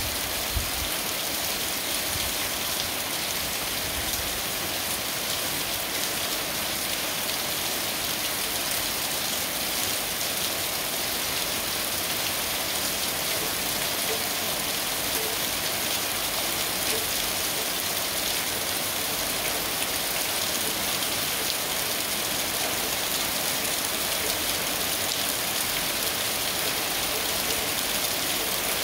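Steady rain falling, an even hiss dotted with many small drop ticks that holds unchanged throughout.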